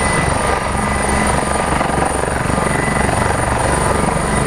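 Helicopter rotor and engine sound effect, a steady loud whirr with a low rhythmic chop, laid over the toy helicopter.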